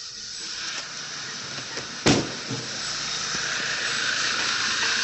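B8 Audi A4 Avant engine idling roughly with a steady hissing noise, misfiring badly; the owner suspects a bent valve. A sharp knock stands out about two seconds in.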